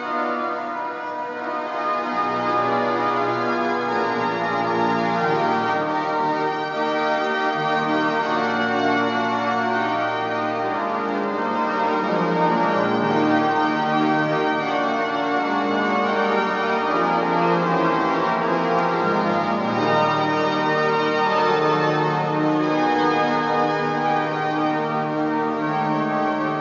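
The Wanamaker Organ, a huge pipe organ, playing full sustained chords, with long low bass notes coming in about two seconds in.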